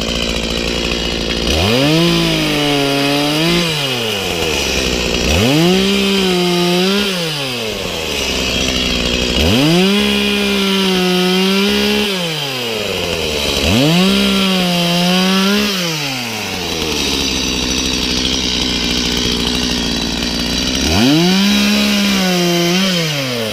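Husqvarna 120i battery-powered chainsaw cutting timber in five short bursts: each time the electric motor's whine rises quickly, holds for two to three seconds, dipping slightly as the chain bites into the wood, then winds down. A steady hiss runs underneath.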